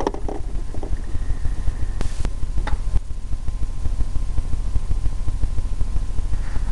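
Steady low rumbling hum, with a short click about two seconds in.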